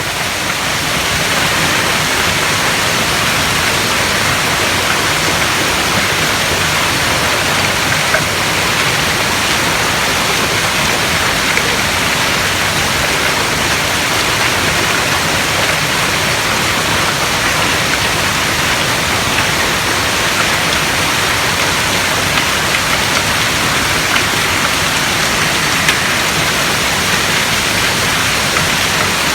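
Heavy hail and rain pelting down during a severe thunderstorm, a dense steady rush with an occasional sharper tick.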